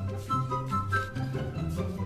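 Background music: a bouncy, light comic piece with bright flutes and pizzicato strings over a moving bass line at a quick, steady beat.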